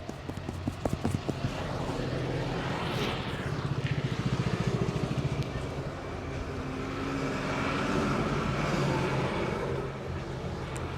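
Roadside traffic: motor vehicles passing, the sound swelling and fading twice over a steady hum. In the first second or two, a run of quick, even hand taps from a head massage dies away.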